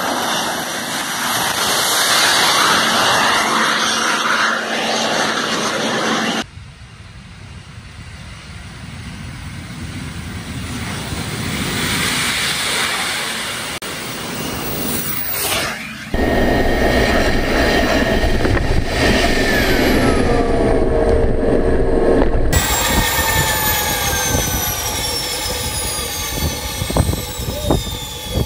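Home-built gas turbine, made from a truck turbocharger, running on a jet-powered motorbike as it rides by: a loud rushing jet noise that builds as the bike approaches. Later its turbine whine falls steadily in pitch as the engine spools down.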